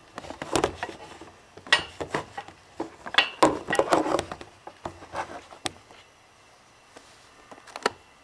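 Hard parts being handled at a workbench: irregular knocks, taps and scrapes of metal and PVC, busiest for the first six seconds, with one last sharp click near the end.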